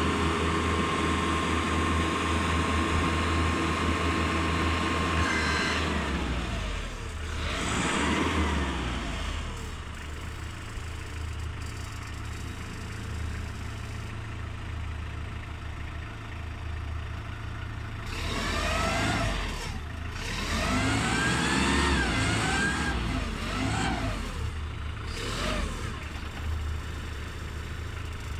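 SNSC 3.5-ton diesel forklift's engine running as it is driven, revving up and down several times, with a whine that rises and falls with the revs, most of it in the second half. A steady high tone sounds for the first five seconds or so.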